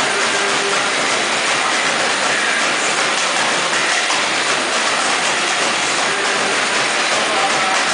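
Samba school drum section (bateria) playing: surdos and smaller drums beaten together in a loud, steady, dense wash of percussion.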